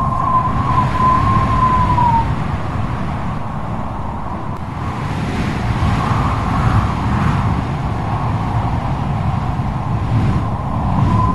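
Strong stormy wind gusting, with a heavy low rumble and a high wavering whistle that falls away about two seconds in and returns near the end.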